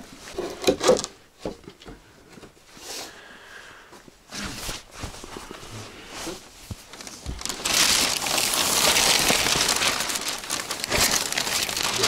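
A plastic carrier bag being handled, rustling and crinkling, loudest for several seconds near the end.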